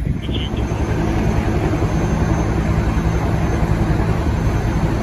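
A fire water tender's diesel engine idling with a steady low hum.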